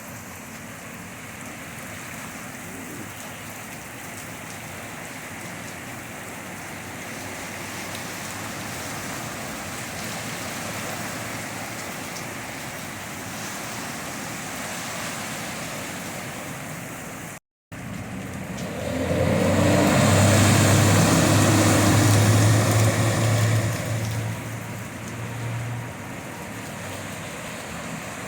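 Steady rain and rushing floodwater, then a car driving through the flooded street about 19 seconds in: its engine hums while its tyres throw up a loud wash of water for several seconds before it fades.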